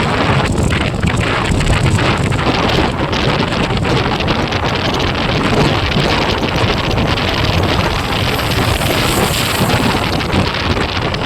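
Steady, loud wind rush buffeting the microphone of a moving motorcycle.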